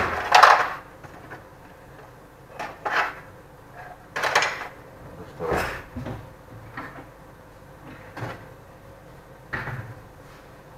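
A kitchen drawer being opened and handled, with utensils in it clattering, in a series of separate knocks and rattles.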